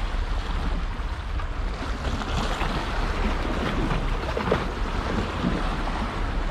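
Wind buffeting the microphone over sea waves washing against a rock ledge, a steady rumbling noise, with a few faint clicks in the middle.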